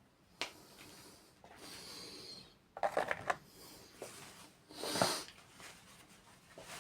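Small objects being handled and moved around on a workbench: some rubbing, a quick clatter of knocks about three seconds in, and a louder scraping rustle about five seconds in.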